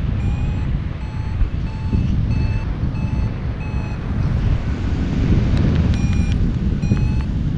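Paragliding variometer beeping in short, even pulses, about two a second, pausing briefly midway and then resuming: the climb tone that signals the glider is rising. Under it, steady wind rush on the microphone.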